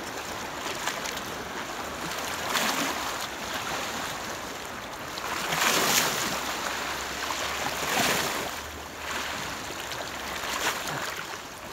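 Small waves washing and splashing over shoreline rocks, surging about four times, loudest about six seconds in.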